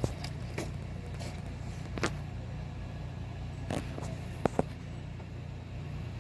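Hand tools clicking and tapping on metal while the engine bracket's bolts are undone: a handful of short sharp clicks, a close pair about four and a half seconds in, over a steady low hum.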